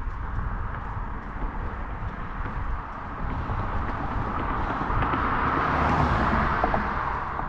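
A road vehicle passing, its tyre and engine noise swelling to a peak about six seconds in and then fading, over a steady low rumble of wind on the microphone.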